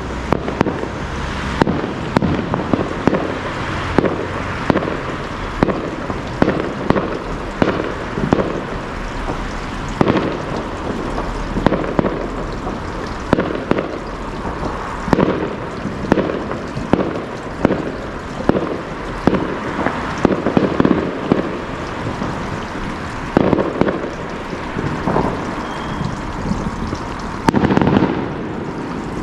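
Fireworks display: a continuous barrage of bangs, several a second, over steady crackling, with a louder cluster of bangs near the end.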